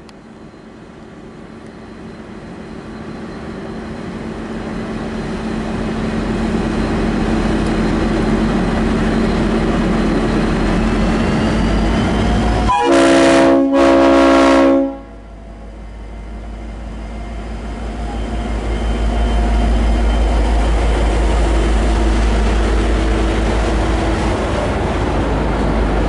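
V/Line N class diesel locomotive N455, with an EMD 12-645 engine, pulling out and growing steadily louder as it draws near. About halfway through, its Leslie RS5T multi-chime horn sounds two blasts of about a second each, back to back. Then the engine swells again as the locomotive passes and the carriages roll by.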